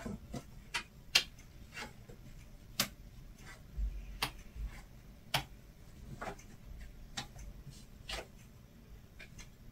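Tarot cards and small dice being handled and set down on a table: irregular light clicks and taps.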